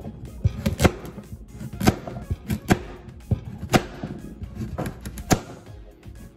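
Chef's knife chopping a raw carrot on a wooden cutting board: sharp, irregular chops, some in quick pairs and triples, over background music.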